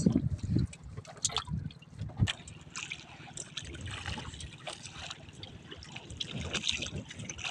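Sea water lapping and splashing against the side of a small outrigger boat, with scattered small knocks.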